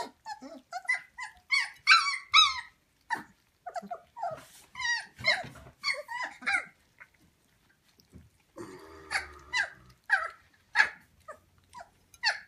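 Three-week-old German Shepherd puppies squealing and whining in many short, high calls, with some growling, as they jostle over a shared plate of porridge. A brief lull comes a little past the middle.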